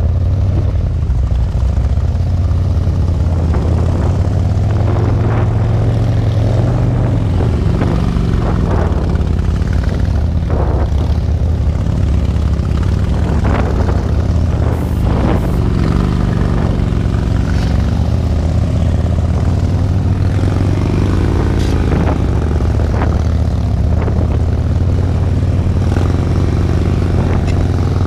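Harley-Davidson V-twin motorcycle engines running at low speed through tight, slow turns. The low rumble is steady, and the engine note rises and falls in places with the throttle.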